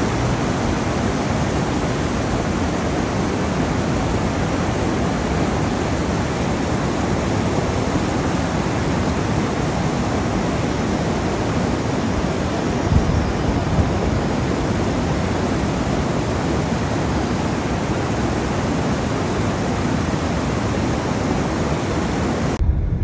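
Fast-flowing floodwater rushing and pouring over a road barrier, a loud, steady rush of water that cuts off shortly before the end.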